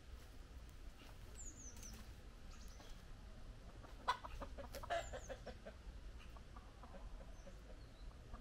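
Chickens clucking faintly, with a short run of clucks about four to five seconds in.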